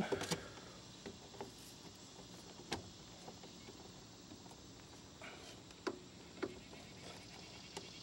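Light clicks and knocks of a twist-lock power plug and heavy rubber cable being handled and fitted into a portable generator's outlet, a few isolated clicks spread over several seconds against a quiet background.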